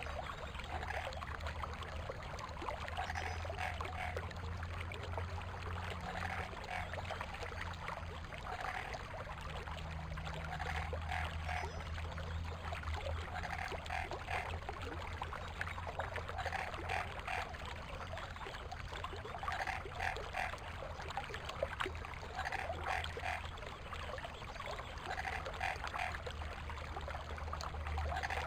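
Stream water running steadily over stones, with a frog calling in short croaks of three or four quick pulses, repeated every second or two.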